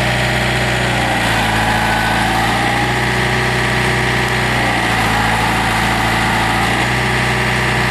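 Yanmar diesel engine of a John Deere 110 tractor loader backhoe running steadily.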